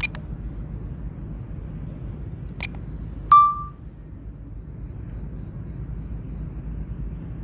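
A single short electronic chime with a clear pitch, about three seconds in, as the DJI Fly app starts video recording. Two short clicks come before it, over a steady low rumble.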